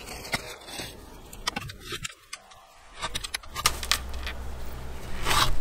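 Scattered light clicks, clinks and rustles of hands handling potting materials and jute fabric. There is a brief silent gap in the middle, and a low hum comes in during the second half.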